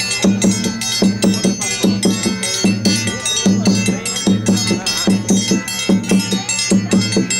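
Instrumental music with a steady, regular percussion beat under sustained pitched notes.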